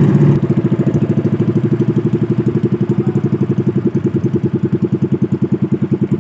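Small motorized boat engine running steadily with a rapid, even putt-putt of about nine beats a second.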